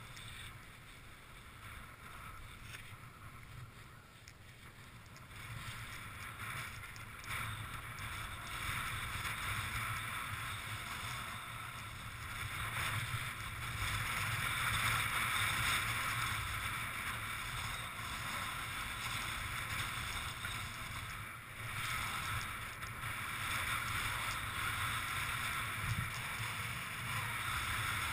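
Wind rushing over the camera microphone together with the steady hiss of sliding over snow behind a traction kite, growing louder from about six seconds in.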